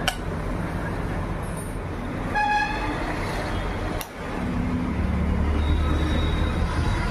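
Low rumble of background motor traffic with a short horn toot about two and a half seconds in and a sharp click at the very start. A low engine drone grows louder from a little past halfway.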